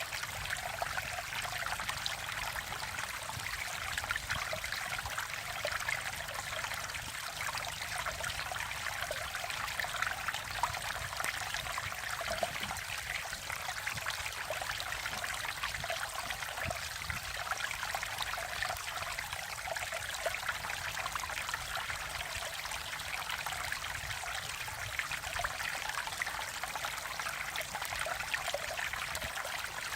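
Mountain stream water flowing and trickling over rocks, a steady, even rush of running water.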